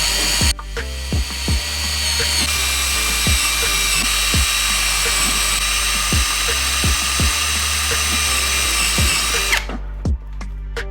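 A power tool running steadily with a high whine, dropping out briefly about half a second in and stopping suddenly near the end, over background music with a steady beat.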